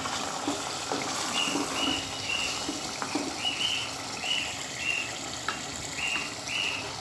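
Chicken in cream sauce sizzling and frying in a pan, a steady hiss. Over it runs a series of short high chirps.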